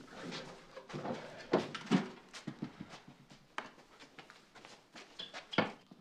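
Paper rustling and a series of light knocks and clicks as small objects are handled and set down on a wooden desk, the sharpest knock near the end.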